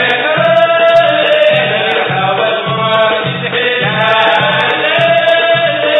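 Sudanese Sufi madeeh: a chorus of men singing a praise song in unison over a steady low drumbeat.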